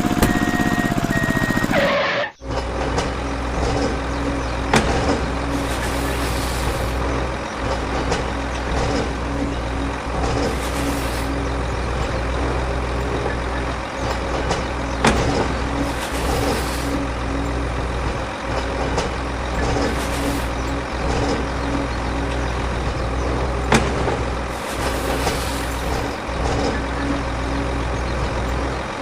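A vehicle engine running steadily, with a short hiss of air every four to five seconds and a few sharp clicks. A different sound cuts off suddenly about two seconds in.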